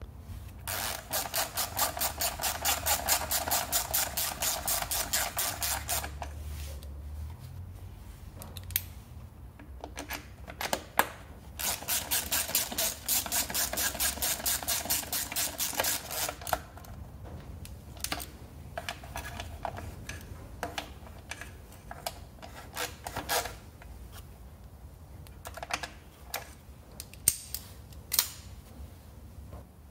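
Hand socket ratchet clicking rapidly as it turns the screws of the scooter's black plastic cover, in two runs of about five seconds each. After them come scattered single clicks and light knocks.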